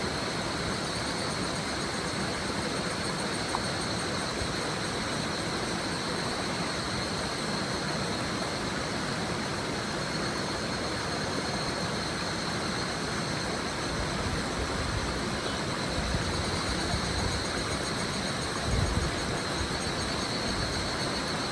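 A river running steadily over stones, with higurashi evening cicadas (Tanna japonensis) calling in a continuous high, fluttering chorus. Low rumbles swell in the last third, with a brief low thump about 19 seconds in.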